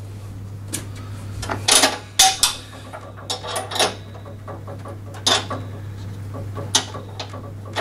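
Irregular small metal clinks and taps as a bolt, washer and nut are handled and fitted through a lawn mower handle's metal bracket plate. There is a steady low hum underneath.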